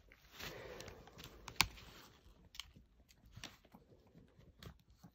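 Scattered clicks and taps, with a short rustle about half a second in and one sharp, louder click about a second and a half in.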